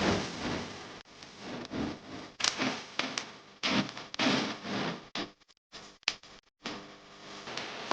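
A string of short rustling and clicking handling noises, with sharp clicks among them, broken off abruptly twice about two-thirds of the way through.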